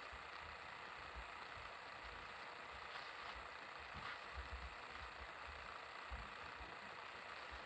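Faint room tone: a steady low hiss with scattered soft low thumps.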